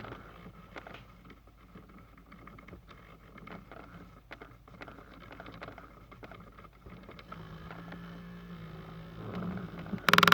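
Faint, irregular clicking from inside a Toyota Sienna's dash by the driver's footwell, from the heating and ventilation system, which keeps clicking whatever mode is selected. Just before the end, a much louder steady pulsing sound starts suddenly.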